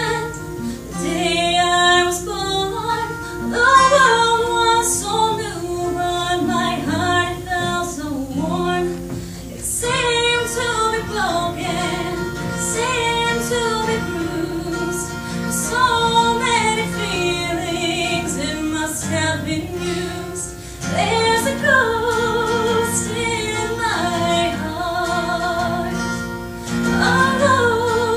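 A woman singing a slow ballad over acoustic guitar accompaniment, holding long notes with vibrato.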